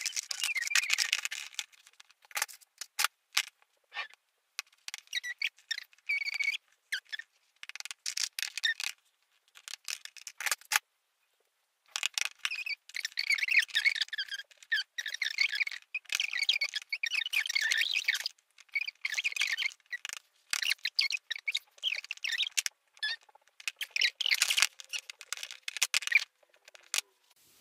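High-pitched, squeaky chatter of a voice in quick, broken bursts, like play voices given to toy figures.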